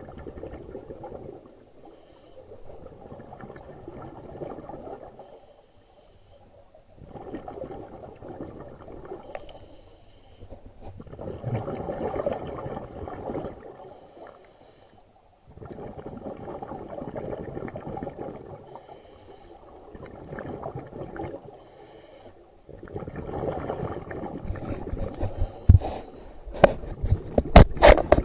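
Scuba diver breathing through a regulator underwater: bubbling exhalations lasting a few seconds each, with short quiet gaps for the inhales between them. Near the end, several sharp knocks.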